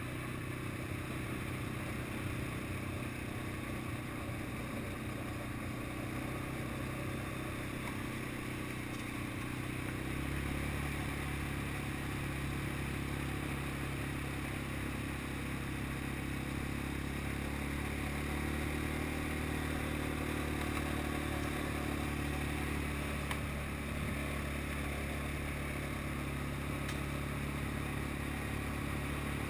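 Small off-road vehicle engine running steadily while driving a rough dirt track, its note shifting lower and stronger about ten seconds in.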